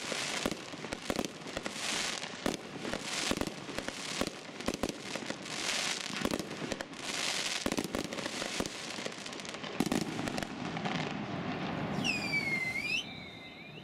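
Aerial fireworks shells bursting in rapid succession: dense sharp bangs and crackling. The bursts thin out near the end, where a short falling-then-rising whistle sounds.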